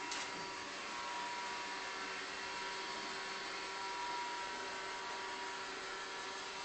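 Steady faint hiss with a thin high whine, and a soft click just after the start.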